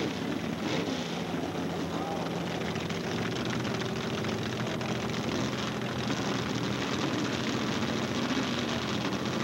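Off-road vehicle engines running steadily under a dense wash of noise, with a faint voice over it.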